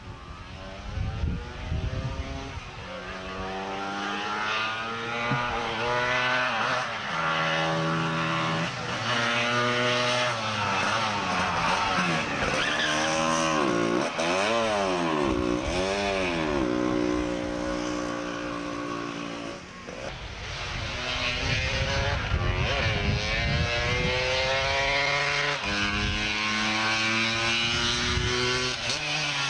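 Two-stroke scooter engines of racing sidecar outfits running hard uphill, the pitch climbing in steps as each gear is taken, swinging down and up again around the middle. The pitch dips briefly and then climbs again as another outfit accelerates near the end.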